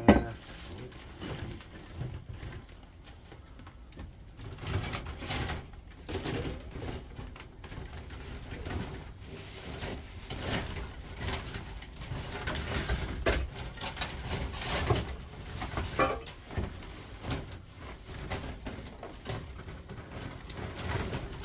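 Scattered knocks, clicks and clatter of metal parts being handled and set down, with a loud knock at the very start.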